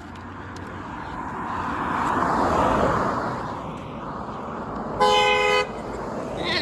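A car passes, its road and engine noise swelling and then fading, and then a car horn gives one short honk of about half a second near the end.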